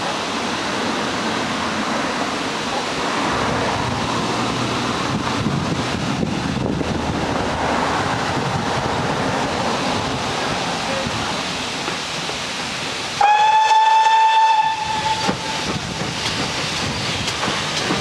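Steam locomotive hauling a train of coaches approaching, under a steady rushing noise with wind on the microphone. About thirteen seconds in it gives one loud whistle blast, a single steady note lasting about a second and a half.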